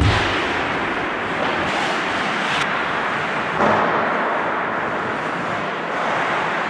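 Ice hockey play on an indoor rink: a steady hiss of skates on ice echoing in the arena, with a low thump at the start during a goalmouth scramble and a brief louder rush about three and a half seconds in.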